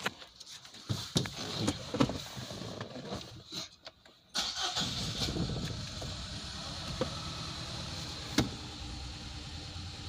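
2017 Nissan X-Trail's four-cylinder petrol engine being started: a few seconds of clicks and knocks, then about four seconds in it catches and settles into a steady idle, with one sharp click near the end. The engine has a misfire, which is making it run rough.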